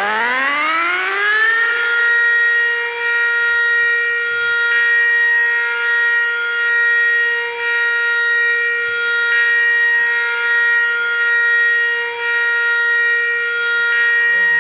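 Tornado warning siren winding up, its pitch rising steeply for the first couple of seconds, then holding a loud, steady multi-note wail. Its loudness swells and dips slightly every four to five seconds.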